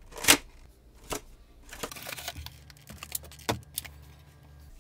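Action-figure packaging being handled: a string of sharp clicks and taps, with a short crinkly rustle around two seconds in. The loudest click comes just after the start.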